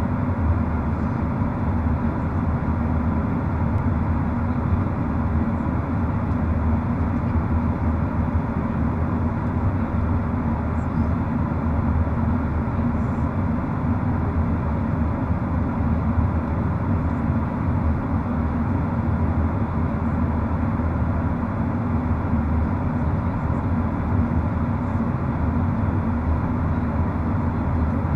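Cabin noise inside a Boeing 737-800 in flight: the steady drone of its CFM56 turbofan engines and the airflow over the fuselage.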